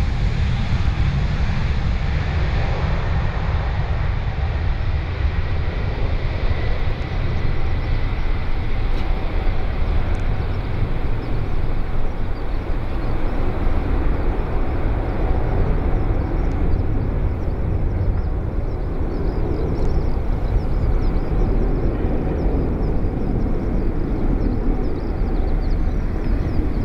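Boeing 777-200 twin jet engines at takeoff thrust as the airliner lifts off and climbs away: a loud, steady low rumble, with a faint high whine fading over the first ten seconds or so.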